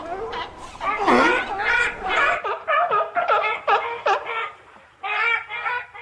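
Seal calls: a quick run of short, pitched yelps that bend up and down in pitch, several a second, with a brief pause near the end.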